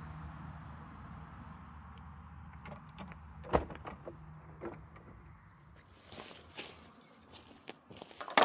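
Small engine of a 7¼-inch gauge miniature locomotive running steadily at a low pitch, fading out about five to six seconds in. A single sharp knock about three and a half seconds in is the loudest sound. After that come scattered clicks and rustling handling noises, and another loud knock at the very end.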